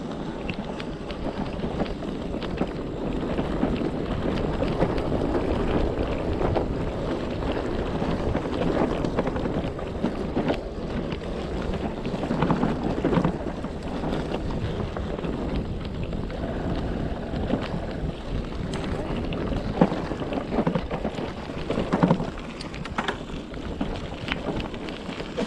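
Wind buffeting the microphone over the steady rumble of an e-bike riding along a rough trail, with occasional sharp knocks and rattles from the bike.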